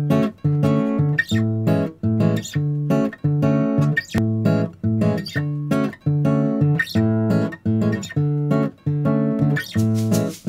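Background music: guitar strumming chords in a steady rhythm, about two strums a second.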